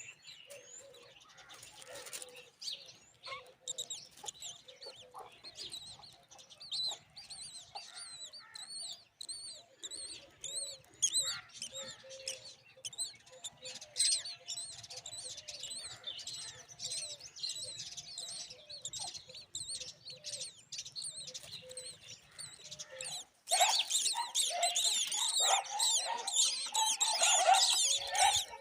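Myna chicks calling in a rapid stream of high, repeated chirps that suddenly grow much louder and denser near the end.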